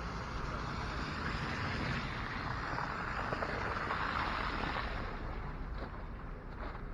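Outdoor rushing noise: a hiss that builds to a peak about four seconds in and fades near the end, over a low rumble of wind on the microphone.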